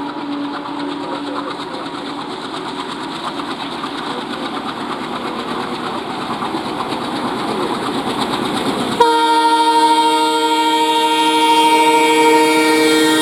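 Train approaching with a rising rail rumble, then about nine seconds in an ALCO diesel locomotive's air horn blasts suddenly and loudly, a chord of several steady tones held for several seconds.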